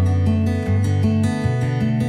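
Background music led by an acoustic guitar, with plucked notes changing in a steady rhythm.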